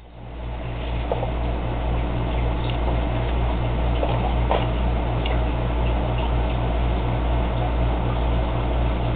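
A steady low hum with a fast, even pulse in it, with a few faint light clicks scattered through.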